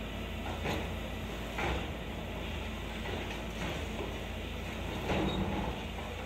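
Volvo EC300D crawler excavator's diesel engine running steadily, with several knocks and crashes of demolition debris, the loudest about five seconds in.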